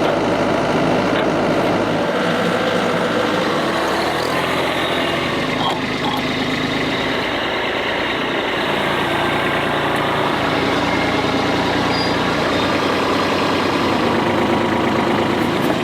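A heavy machine's engine idling steadily.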